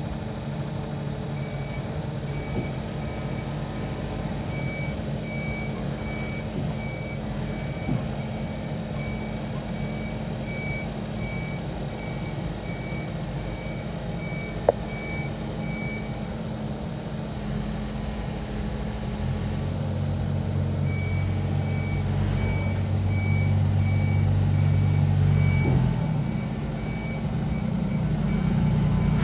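Yanmar SV100 excavator's diesel engine running, with its travel alarm beeping about one and a half times a second as the machine moves. The beeping pauses for a few seconds midway, and the engine works harder from about two-thirds in, then eases off near the end.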